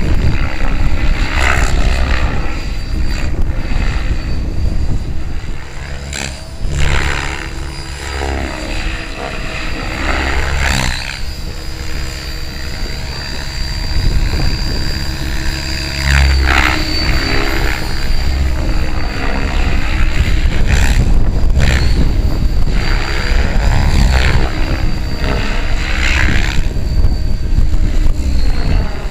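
Compass 7HV, an electric 700-size radio-controlled helicopter, in flight. Its rotor blades chop steadily under a high motor and gear whine, and the sound repeatedly swells and shifts in pitch as it passes back and forth.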